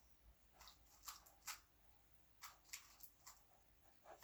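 Faint, scattered plastic clicks of a 3×3 Rubik's cube being turned by hand, a few soft clicks a second apart.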